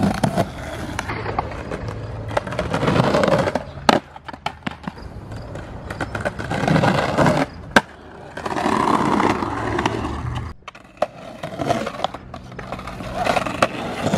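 Skateboard wheels rolling over concrete banks, swelling and fading with each run, with several sharp clacks of the board, the loudest about eight seconds in.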